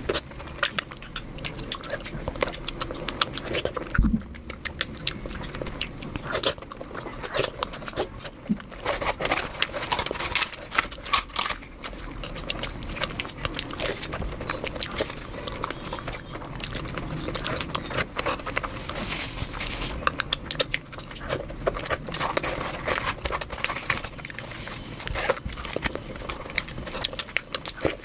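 A person eating and chewing food, with many short, irregular mouth clicks and smacks.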